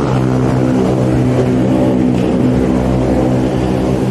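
Engine of a nearby motor vehicle running with a steady drone, over a low rumble.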